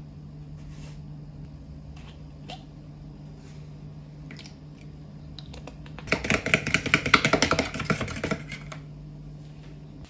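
Rapid light clicking and tapping of kitchen utensils for about two seconds, over a steady low hum, with a few scattered clicks before it.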